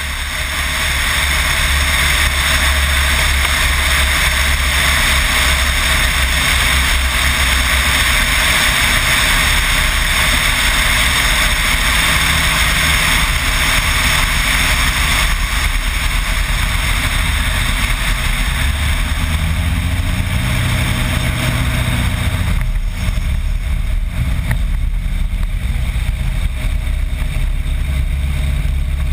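Single-engine seaplane's propeller engine running through a water landing, under a loud rush of wind and water on an outside-mounted microphone. About two-thirds of the way through, the engine note shifts and the rushing noise eases as the plane slows on the water.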